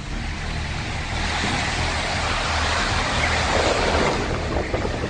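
Hurricane-force wind driving heavy rain, a steady rushing noise with a low rumble underneath.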